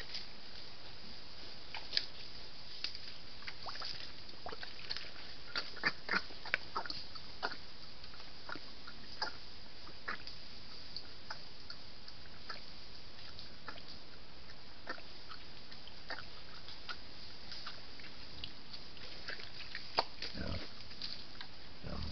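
Wild boar moving and rooting through dry leaf litter and twigs: scattered crackles, rustles and snaps over a steady hiss, with a short low grunt near the end.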